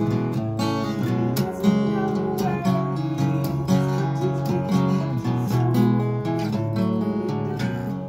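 Cutaway acoustic guitar strummed in a steady rhythm, the chords changing every second or so, fading near the end.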